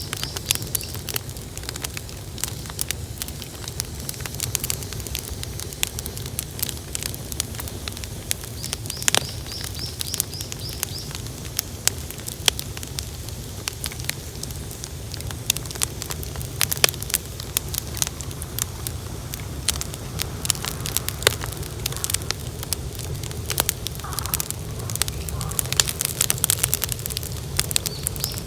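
A large bonfire crackling, with a dense run of sharp snaps and pops over a steady low rumble of burning.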